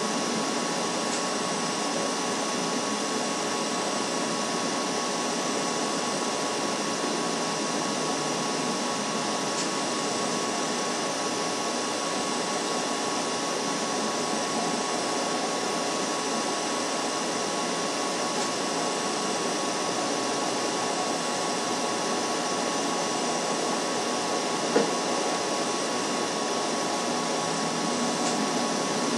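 Steady, even hiss with a faint steady tone mixed in, unchanging throughout: background noise of the nest camera's live audio feed. A single faint click about 25 seconds in.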